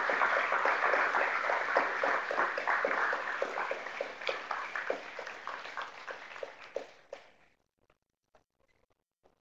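Audience applauding, the clapping gradually thinning and fading over about seven seconds, then dropping to near silence with a few faint clicks.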